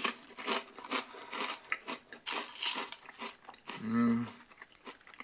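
Lorenz Crunchips potato chips being chewed in the mouth, a quick run of crisp crunches for the first three seconds or so. A short hummed 'mm' comes about four seconds in.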